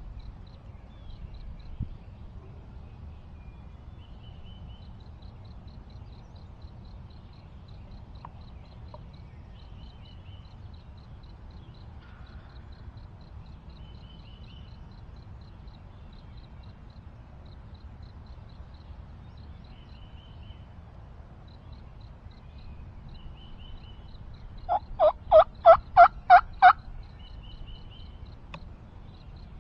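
Turkey yelping near the end: a run of about eight loud notes, roughly four a second. Before it only a low steady rumble and faint high chirping are heard.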